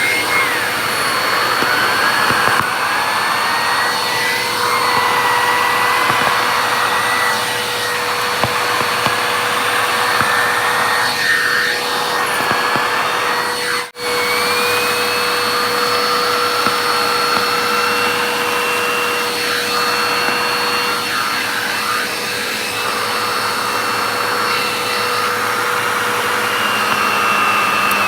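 Vacuum cleaner running steadily over the floor, with a hum and a whistle that wavers up and down in pitch as the suction changes. The sound drops out for an instant about halfway through.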